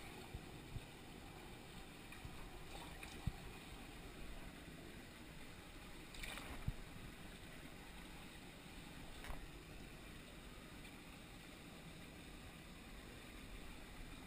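Shallow stream water running and sloshing, with brief splashes as a hand works in the water to land a brown trout, and a few soft knocks.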